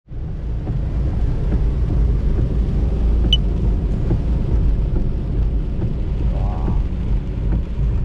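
Cabin noise inside a Daihatsu Hijet Cargo kei van driving through a storm: a steady, heavy low rumble of wind and road noise with a hiss of rain on the van.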